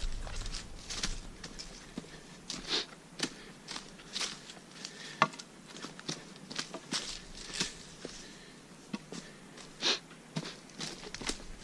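Footsteps on a forest trail: irregular short scuffs and steps, roughly one every half second to a second.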